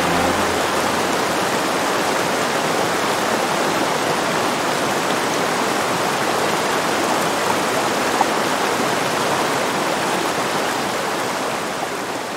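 Muddy storm-runoff floodwater rushing down a grassy drainage channel, a steady even rush of running water that fades out near the end.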